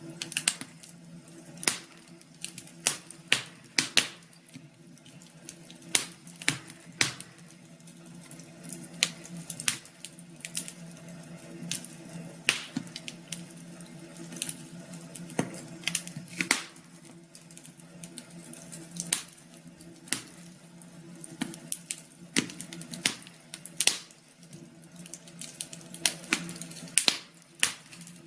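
Wood fire in a fireplace crackling, with irregular sharp pops and snaps a few times a second over a faint steady hum.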